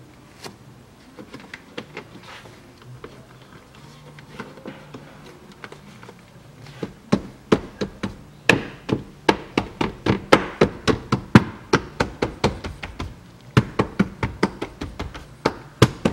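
A hand pressing and tapping the rubber door-opening seal back onto its flange along the door pillar: a few faint taps, then from about seven seconds in a quick run of sharp taps, three to four a second.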